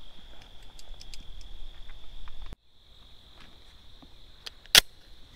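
A single shot from a Smith & Wesson M&P 40 .40-caliber pistol near the end, sharp and loud, over a steady high insect trill.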